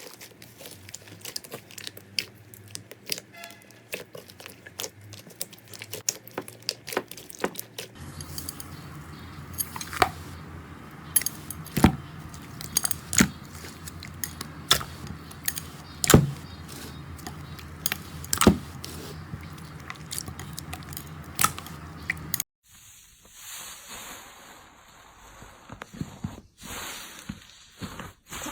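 Slime being squeezed and pressed close to the microphone: a dense run of small sticky clicks and crackles, with louder separate pops about once a second in the middle part. The sound changes abruptly twice as one clip gives way to another.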